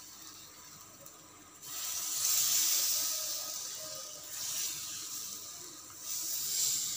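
Thin rava dosa batter hissing on a hot pan as it is poured on in three swells of sizzle, the first starting about a second and a half in.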